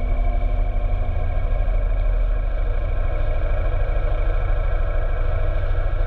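Motorcycle engine running steadily at road speed, with wind noise rumbling on the microphone.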